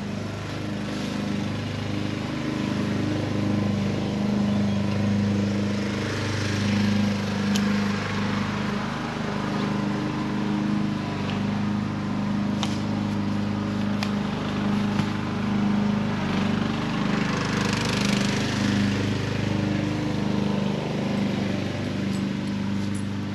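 A small engine runs steadily at an even pitch. Over it come two spells of fabric rustling and a few sharp clicks as a nylon bundle is rolled up and strapped.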